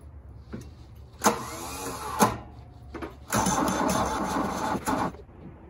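A Volkswagen Rabbit pickup's diesel engine being cranked over by its starter in two attempts, a short one of about a second and then a longer one of about two seconds, with clicks between them. This is a first start attempt after the engine has sat for about 25 years.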